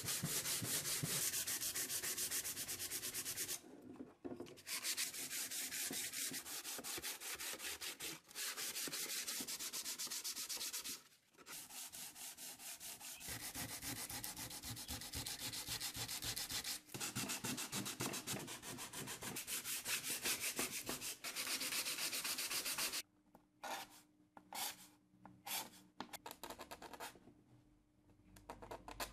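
Oak being hand-sanded with a sheet of sandpaper, in quick back-and-forth strokes with a few short pauses. About 23 s in the steady sanding stops, and only a few short, separate scrapes follow.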